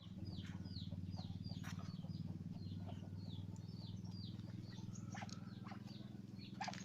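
Ducks peeping: short, high, falling peeps repeated about twice a second, over a steady low hum.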